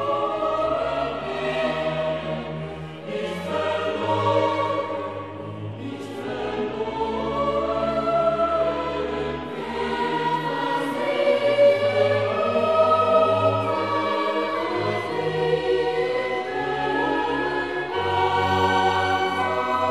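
Classical choral music: a choir singing sustained, slowly moving lines over an instrumental accompaniment with held bass notes.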